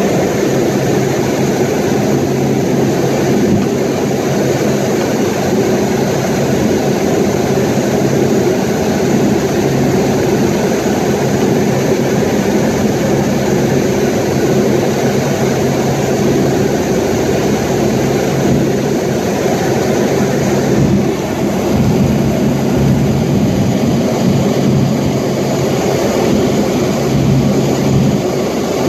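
Loud, steady noise of an aircraft in flight heard from inside the cabin, with a constant low hum under it.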